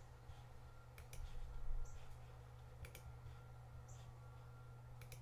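Computer mouse clicks, a few single sharp clicks about two seconds apart, over a steady low hum.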